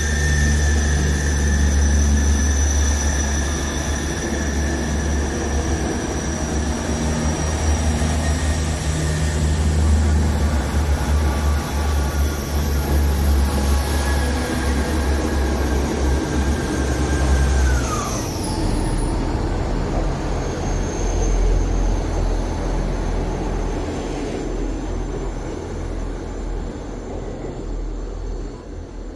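South Western Railway diesel multiple unit pulling out past the platform: a steady low engine rumble with a high whine as the carriages go by. About 18 seconds in the whine drops sharply in pitch, and the sound then fades slowly as the train draws away.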